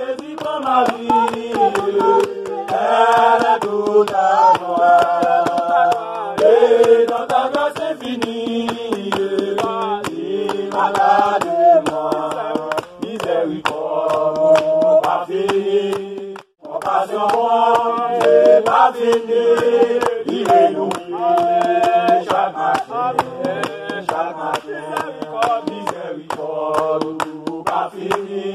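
A mixed group of men and women singing a hymn together in unison, with rhythmic hand clapping on the beat.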